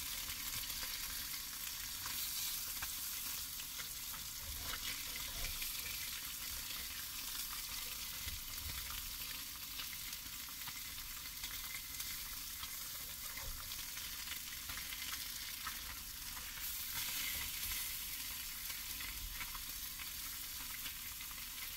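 Pejerrey fillets frying in olive oil in a small griddle pan, a steady sizzle, with occasional taps and scrapes of a metal spatula working them in the pan.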